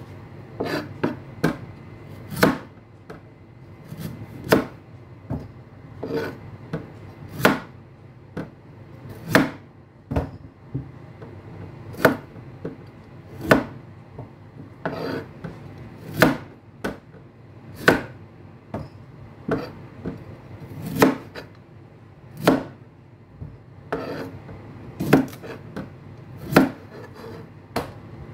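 Chef's knife chopping beetroot stems and greens on a cutting board: irregular sharp knocks of the blade hitting the board, about one or two a second, some in quick pairs.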